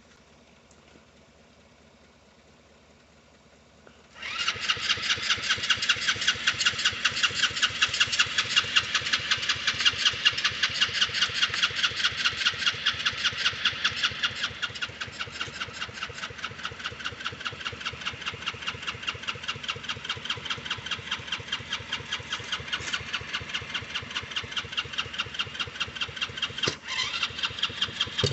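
Electric starter cranking a kids' 110cc ATV engine, which turns over in a fast, even pulse of about five beats a second without catching. It starts about four seconds in and keeps cranking for over twenty seconds, a little softer partway through. The owner takes the failure to start for a dirty carburetor or needles.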